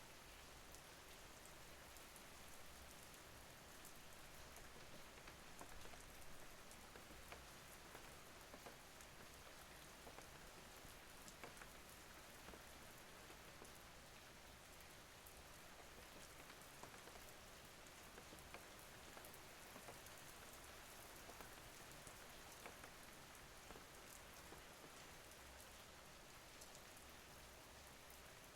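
Faint, steady rain, with many small drops ticking here and there through the even hiss.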